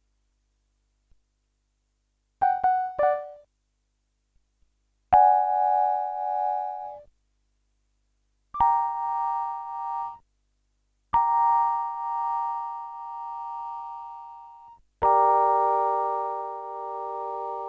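Keytek CTS-5000 synthesizer played: two short notes, then four chords, each starting sharply and ringing away over one to three seconds. The tremolo effect is engaged, making the chords' volume waver as they fade.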